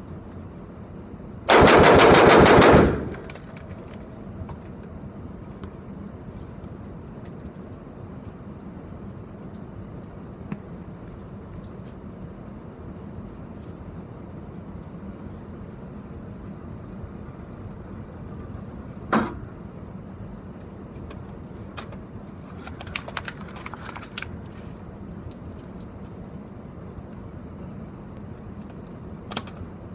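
Rapid string of gunshots in an indoor shooting range, lasting about a second and a half. A single shot follows much later, then a few faint clicks and another shot near the end.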